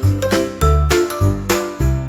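Instrumental children's music: a bright chiming bell-like melody over a bass note that pulses about twice a second.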